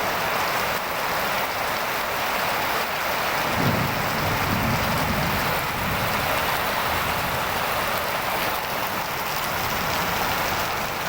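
Heavy tropical rain pouring steadily, a dense, even hiss of rain on surfaces. A low rumble rises beneath it a few seconds in and fades again.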